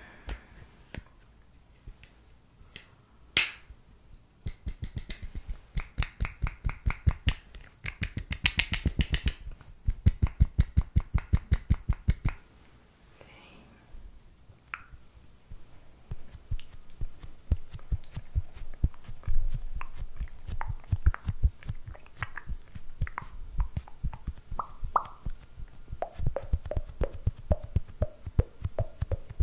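Makeup sponge patted rapidly against the microphone: runs of soft low thuds, several a second, with a quieter pause about halfway through. One sharp click sounds a few seconds in.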